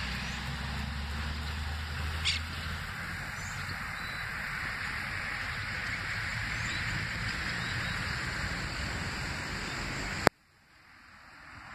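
Outdoor ambience of wind and rustling on a phone microphone: a steady hiss, with low rumbling from wind on the microphone for the first few seconds and a brief chirp-like blip about two seconds in. A sharp click comes near the end, after which the sound drops almost to nothing and slowly returns.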